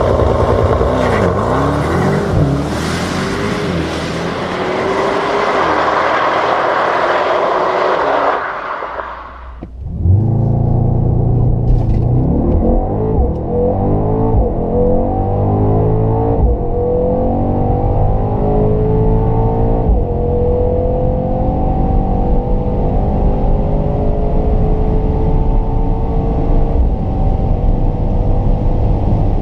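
Mercedes-AMG GT 63 S twin-turbo 4.0-litre V8 exhaust, first revving up and down outside the car. Then, inside the car, the engine pulls hard at full throttle, its note climbing and dropping back at each of several upshifts as the car accelerates.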